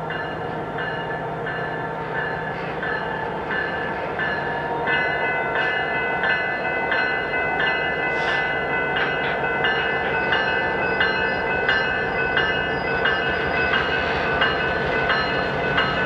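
Rebuilt EMD GP20C-ECO diesel locomotive running slowly past with its engine humming and a bell ringing steadily, about two strokes a second. The ringing grows louder about five seconds in, and the wheels click over the rail joints in the second half.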